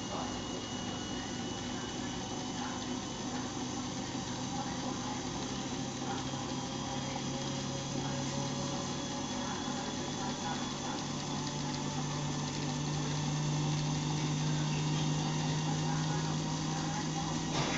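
Siemens Siwamat iQ 714 washing machine running with a steady hum; its tone rises a little and grows slightly louder about two-thirds of the way through.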